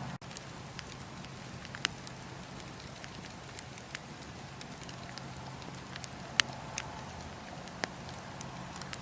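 Bonfire crackling steadily, with a few sharp wood pops standing out, the loudest about six and a half seconds in.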